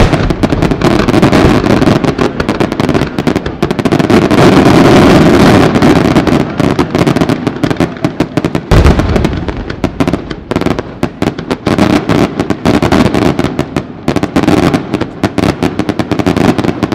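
Aerial fireworks shells bursting in a rapid, continuous barrage of overlapping bangs and crackle, with an especially heavy boom about nine seconds in.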